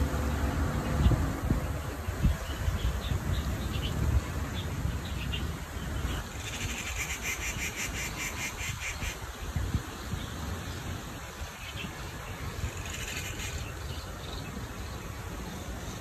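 An insect trilling in a fast, even pulse for about three seconds near the middle, and again briefly near the end, over a steady outdoor hiss. A low rumble is strongest in the first few seconds.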